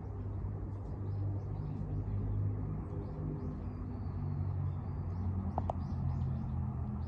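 Outdoor ambience: a steady low rumble of distant traffic, with faint bird chirps repeating above it and a brief clear tone a little past halfway.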